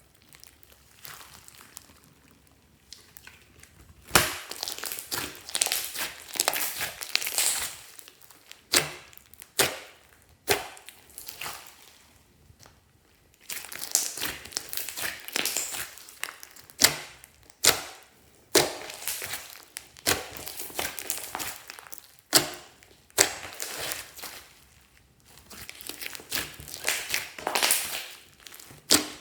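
Glossy slime being kneaded and pressed by hand, giving crackling, sticky clicks and pops in bursts of a second or few, with short pauses between.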